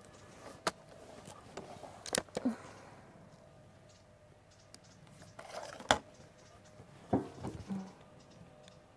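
Gamo Hunter Extreme Pro .22 break-barrel air rifle being cocked and loaded: a few faint clicks around two seconds in as the barrel is swung down and the piston latches, then a sharp clack about six seconds in as the barrel is snapped shut. Light knocks of the rifle being settled onto a rest follow near the end.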